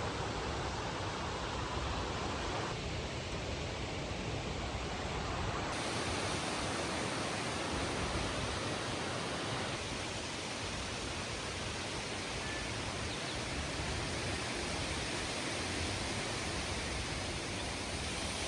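Steady rushing outdoor noise with no distinct events. The hiss turns brighter and wider about six seconds in.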